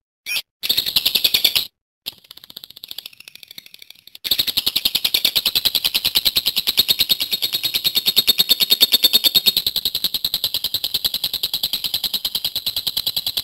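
Lovebird giving its long chattering trill (ngekek panjang), a rapid run of evenly repeated high notes. It starts about four seconds in and carries on without a break, after a short burst and softer chatter at the start.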